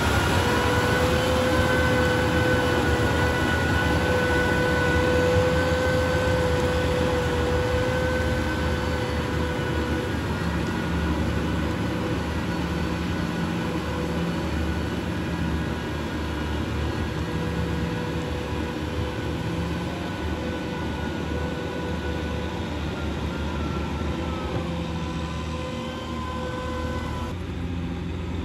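Farm tractor's diesel engine running steadily under load while its rear rotary tiller churns wet paddy mud, with a steady high whine over the engine. The sound slowly fades as the tractor pulls away.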